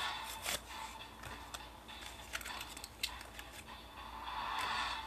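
Light clicks and crinkling from a Hot Wheels plastic blister pack and cardboard card being handled as a die-cast car is taken out of it, with a soft rustle near the end.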